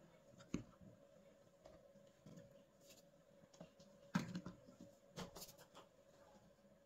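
Near silence with a few soft taps and scrapes of a spatula scooping flour from a glass bowl and tipping it into a glass bowl of batter: one about half a second in, a cluster a little past four seconds, another about five seconds in. A faint steady hum runs underneath.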